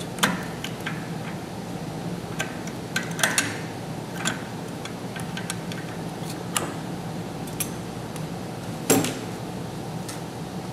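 Scattered small metal clicks and clinks of hand tools on metal, the loudest about nine seconds in, as pliers pull a cotter pin and a ratchet works the rear clevis pin of an electric linear actuator. A steady low hum runs underneath.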